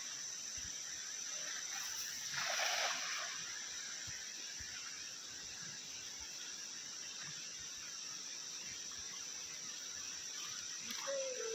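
Steady high drone of rainforest insects, with the splash of a cast net landing on the river about two and a half seconds in.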